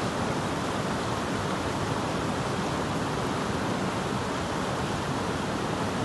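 Steady rushing of a mountain stream flowing over rocks.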